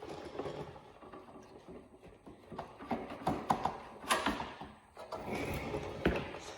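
Irregular metallic clicks, clinks and knocks of motorcycle wheel parts (axle, hub) being handled, with louder knocks about four and six seconds in.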